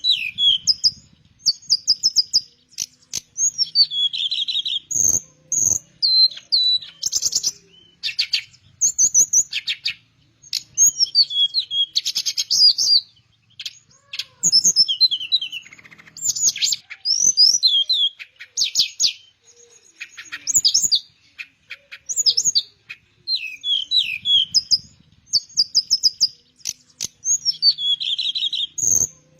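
Teledekan (blue flycatcher) singing in full voice: a fast, varied run of high trills, rising and falling swoops and short whistled phrases, repeated with brief pauses. A few faint low thumps come in between.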